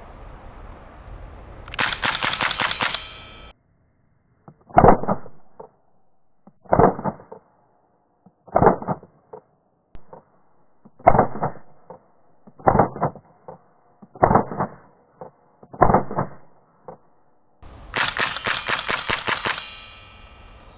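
Tokyo Marui USP gas blowback airsoft pistol firing, the slide cycling with each shot: a quick string of shots about two seconds in, then seven single shots spaced a second and a half to two and a half seconds apart, and another quick string near the end.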